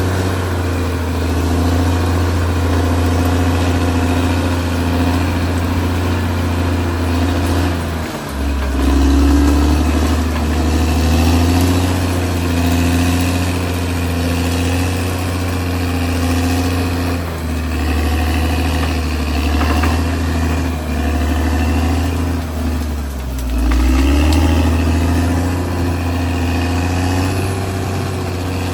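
Caterpillar D6R XL bulldozer's diesel engine running steadily at working revs. The engine note dips briefly twice, about 8 and 23 seconds in, and picks back up each time.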